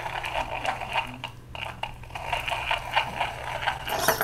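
1/10-scale Axial SCX10 rock crawler's electric motor driving its newly installed center transmission gearbox, the gears whirring with a steady scraping, ratcheting edge. It grows louder near the end; the new gearing is working.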